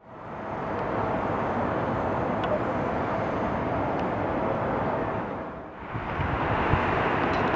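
Airport ambience: a steady rumble and hiss of distant jet aircraft engines, fading in at the start, with a faint steady whine over the first few seconds. It dips briefly about three-quarters through, then returns.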